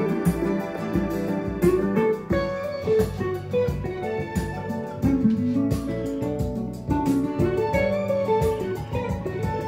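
Music with prominent guitar, played from a vinyl record on a Dual 704 turntable and heard in the room through Boston Acoustics loudspeakers.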